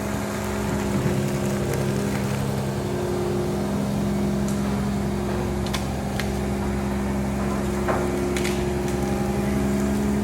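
60-foot long-reach excavator's diesel engine running steadily, with a few short clicks and squeaks a little past the middle.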